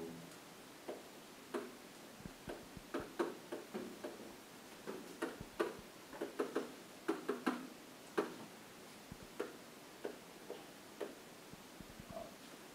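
Pen tip tapping and scraping on an interactive whiteboard as words are handwritten: an irregular run of short taps and clicks.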